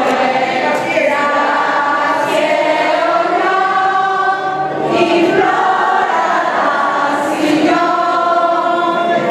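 Many voices singing a slow hymn together in long held notes.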